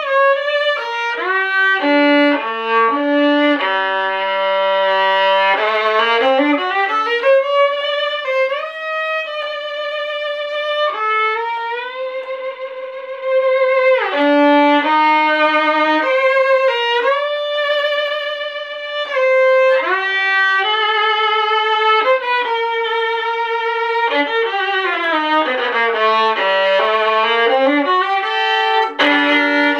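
Solo violin bowed in a continuous melody, the notes held with vibrato and changing often. Near the end a quick run of notes falls low and climbs again.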